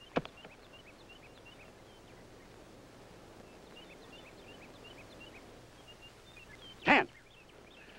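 Small birds chirping, many short scattered notes over a quiet outdoor background. There is a short sharp sound just after the start and a brief loud burst about seven seconds in.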